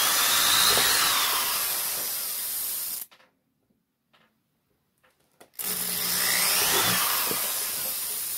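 Power drill boring holes in a small hexagonal craft box, in two runs of about three seconds each with a short pause between. Each run starts with a motor whine that rises and then falls.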